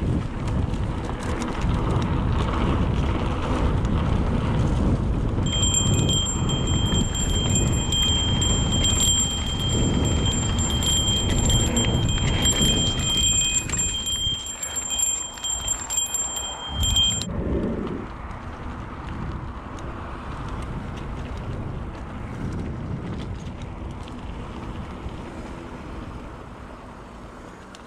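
Mountain bike rolling fast over a dirt trail: a steady rumble of tyres and rattling bike with wind on the microphone, easing off in the last ten seconds. From about six seconds in until about seventeen, a steady high-pitched metallic squeal rides over it, the sound of the disc brakes squealing under braking.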